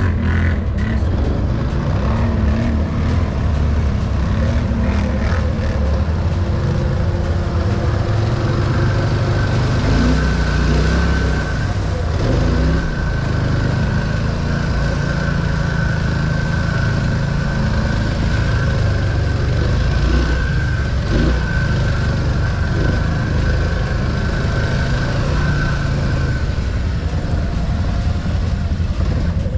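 Quad (ATV) engine running steadily as the machine is ridden, heard from on board. A thin, steady high whine runs over the engine from about nine seconds in until a few seconds before the end.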